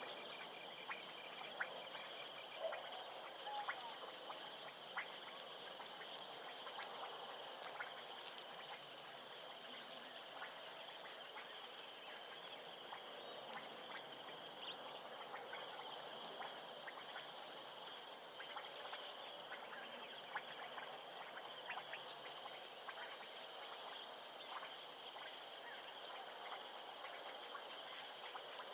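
Chorus of insects, with a continuous high trill and a higher chirping band that pulses about once a second, over a faint steady hiss of bush ambience.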